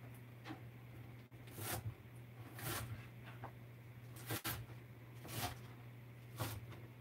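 Chinese cleaver chopping through a bundle of garlic chives on a cutting board: about six crisp chops, roughly one a second.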